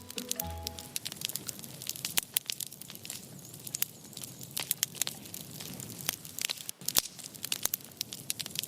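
Firewood burning and crackling, with sharp irregular pops and snaps.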